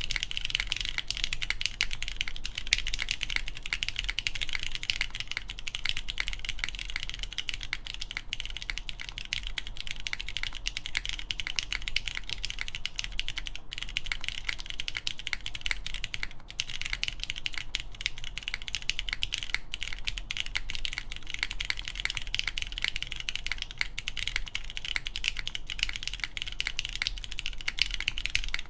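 Fast, continuous typing on a SINGAKBD Kohaku mechanical keyboard with a polycarbonate case, full aluminum plate, lubed Cherry MX Brown tactile switches and GMK keycaps. It is a dense, even stream of key clacks that stops suddenly at the end.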